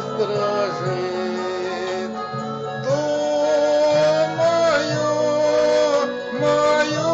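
Slow music: a melody over sustained chords, the notes held and changing every second or two.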